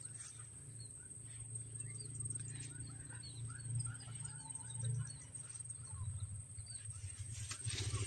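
Small birds chirping in the background, many short scattered calls, over a steady high whine and a low rumble of handling noise; a rustle of grass near the end.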